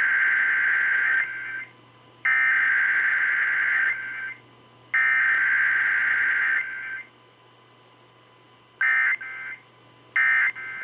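Emergency Alert System SAME data tones heard off an AM radio broadcast: three raspy, warbling digital header bursts of about a second and a half each, a second apart, then, after a short pause, the shorter end-of-message bursts start repeating near the end.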